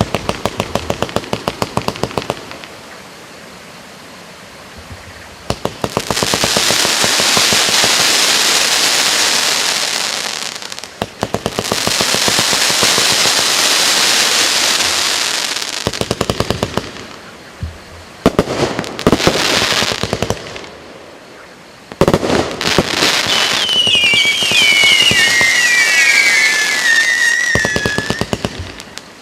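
MC132 multi-shot firework cake firing. It gives quick volleys of sharp launch pops, then long stretches of dense crackling, and several falling whistles over the crackle in the last few seconds.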